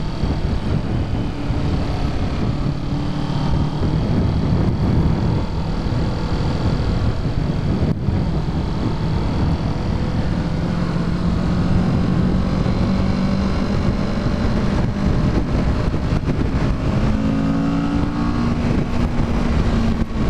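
Kawasaki Ninja 650's parallel-twin engine running under way, heard over wind rush. A few seconds before the end the engine note dips and then climbs again, as on a shift and pull.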